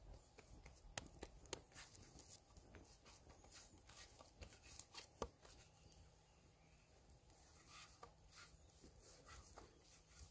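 Faint, irregular light taps and clicks of food being chopped with a knife on a cutting board.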